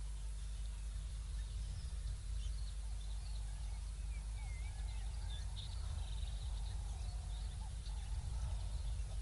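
Wild birds chirping and calling, many short scattered high calls with some lower wavering calls in the middle, over a steady low rumble.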